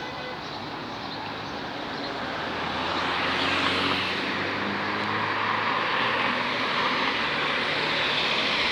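Road traffic passing close by: vehicle engines and tyre noise growing louder about two seconds in and staying loud.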